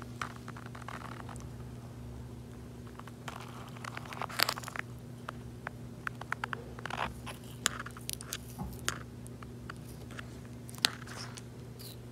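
Box turtle biting and crunching raw carrot and apple pieces with its beak: scattered small crunches and clicks, the loudest about four and a half and eleven seconds in, over a steady low hum.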